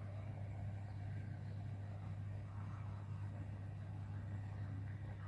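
A steady low hum, fairly faint, that does not change.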